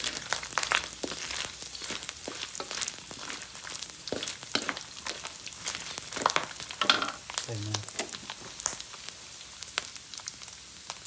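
Diced pork fat sizzling and crackling in hot oil in a steel wok as it renders down, with a wooden spatula stirring it near the end.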